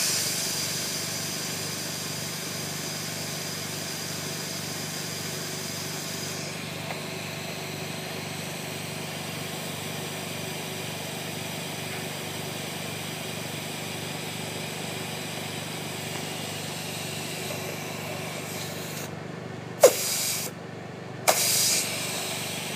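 Pressure relief valve on a BD FACSCanto II fluidics cart repeatedly popping open and venting air. A click and hiss at the start fades over about six seconds, then two short click-and-hiss bursts come near the end. A steady motor hum from the cart runs underneath.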